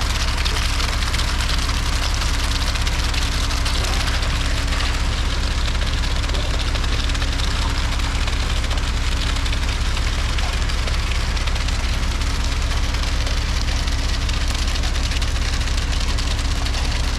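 Concrete mixer truck's engine running steadily at idle, a continuous low rumble with a steady hum and hiss.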